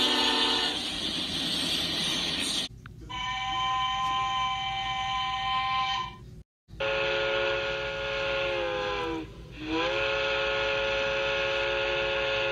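The end of a diesel locomotive horn chord, then steam locomotive whistles. One steady blast comes about three seconds in; after a brief break come two more blasts, each sagging in pitch as it dies away.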